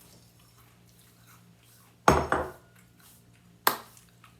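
Dishware knocked on a table: a heavy clunk with a short ring about two seconds in, then a sharper clink near the end.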